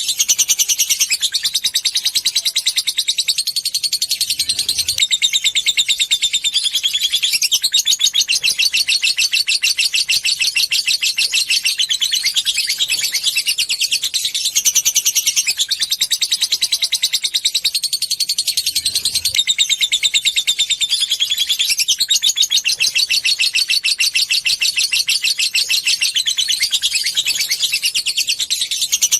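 Lovebird singing its long ngekek: a fast, unbroken chattering trill of many rapid notes a second, carried on in long runs that change pattern every few seconds.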